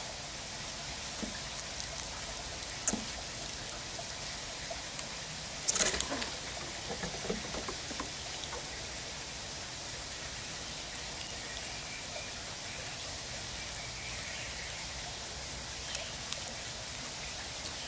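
Steady hiss of light rain with scattered small clicks and crackles as a gray squirrel picks through and cracks sunflower seeds, and a louder rustle of seeds being scooped up about six seconds in.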